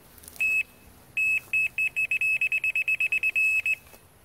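Fox RX electronic bite alarm sounding a carp run: a single beep, then beeps that quicken into a rapid stream of about ten a second as a carp pulls line off the reel, stopping abruptly near the end.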